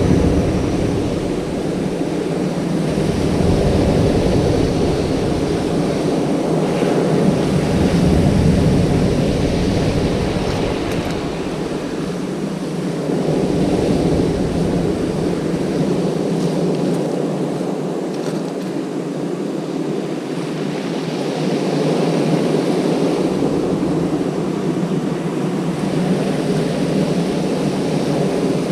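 Strong wind buffeting the microphone in gusts, with a deep rumble that comes and goes, over the steady wash of choppy sea surf swelling and fading every few seconds.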